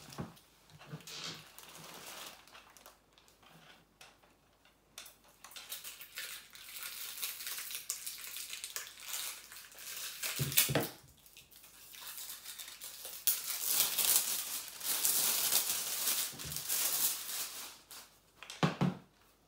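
Plastic wrapping rustling and crinkling as flat-pack furniture parts are handled, loudest in the second half. Two sharp knocks, about ten seconds in and near the end.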